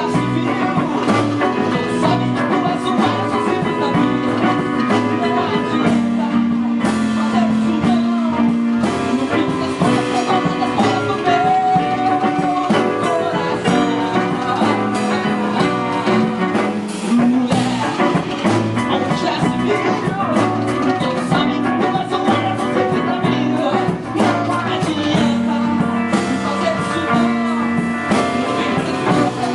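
A band playing an instrumental passage together, with electric guitar, bass, keyboard and drum kit.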